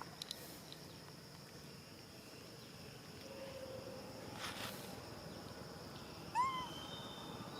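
Steady high-pitched insect drone, with one short, rising-then-falling animal call about six seconds in.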